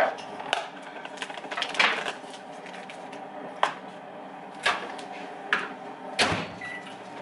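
Kitchen handling sounds: a string of separate sharp clicks and knocks as a bowl of butter is put into a microwave, ending about six seconds in with a deeper knock as the microwave door is shut.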